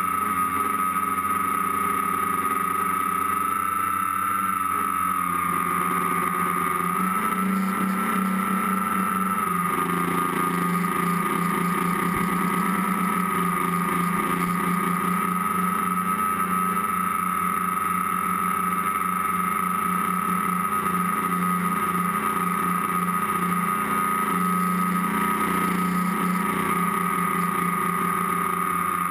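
A tricopter's three motors and propellers whining steadily, heard from the camera riding on the craft itself, the pitch shifting slightly a few times as the throttle changes.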